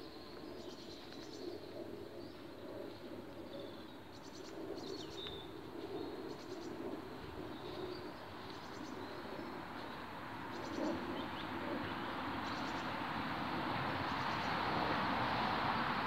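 Outdoor birdsong: short high chirps repeating about once a second, over a lower cooing. A steady rushing noise grows louder over the last few seconds.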